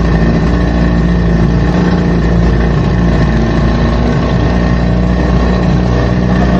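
Outboard motor of a small open boat running under way at a steady speed, heard close up with an even, unchanging pitch.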